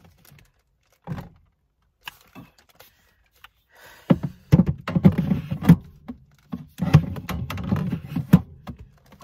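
Knocks and thuds of a divider panel being worked into a portable fridge-freezer's compartment: one knock about a second in, then a dense run of bumps and scrapes in the second half as the panel is seated.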